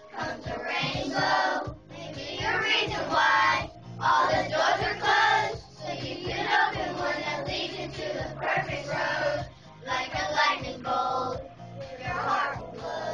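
A group of children singing together over a pop backing track with a steady beat.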